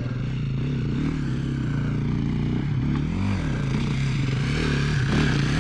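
Dirt bike engines: one idling steadily while another revs up and down several times as it is ridden over the terrain.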